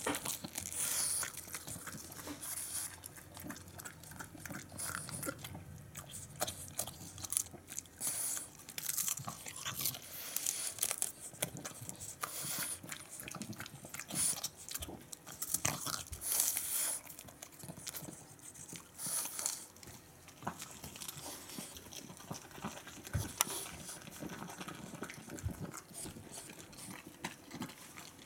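A French Bulldog biting into and chewing crisp Chinese cabbage leaves, in irregular crunches.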